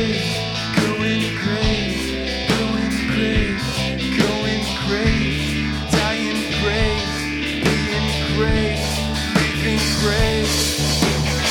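Live grunge rock band music: guitar, bass and drums playing an instrumental passage with a steady beat.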